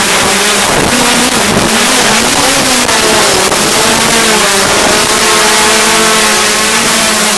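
Hexcopter's electric motors and propellers whirring loudly, heard close up from the craft's own camera, the pitch wavering and gliding up and down as the throttle changes.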